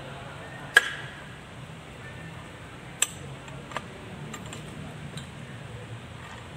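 Metal clicks and clinks from steel gears being slid and seated on their shafts inside an open Kubota B6001 transmission case: a sharp clack about a second in, another near three seconds, then a few lighter ticks.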